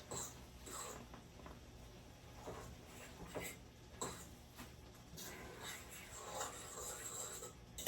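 Faint kitchen handling noises: scattered light clicks and knocks with brief scraping and rustling, over a low steady hum.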